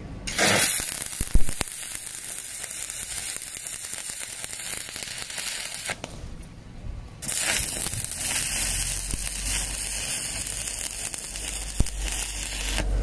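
Stick (arc) welding with a flux-coated electrode: the arc crackling steadily in two runs, with a break of about a second midway and a sharp snap shortly after the first run starts.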